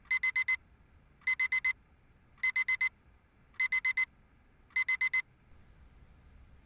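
Digital alarm clock beeping: five bursts of four quick, high-pitched beeps, about one burst a second, stopping about a second before the end.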